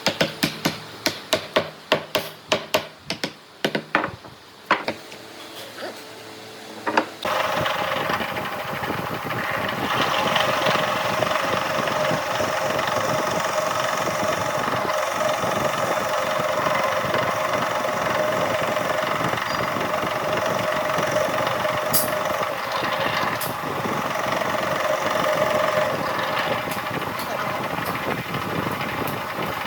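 A quick string of sharp knocks on wood, then about seven seconds in a woodworking power tool starts and runs steadily.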